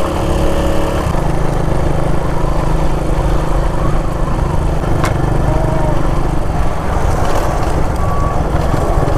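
1986 Honda XL 125's single-cylinder four-stroke engine running steadily while riding at road speed, with a single sharp click about five seconds in.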